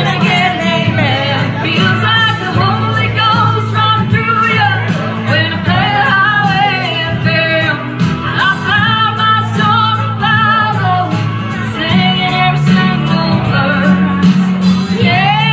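A woman singing into a handheld microphone over instrumental backing music, her voice amplified and loud throughout.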